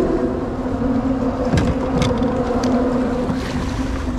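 Boat engine running at a steady, droning pitch, with a few light clicks over it.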